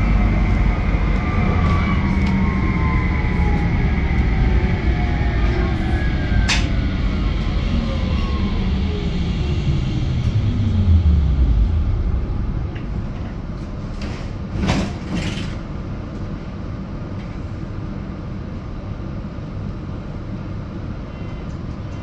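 GT6NU low-floor tram braking to a stop: its electric drive whine falls steadily in pitch as the wheel rumble dies away about twelve seconds in. A few knocks follow a couple of seconds later, and then the stationary tram gives off a steady hum.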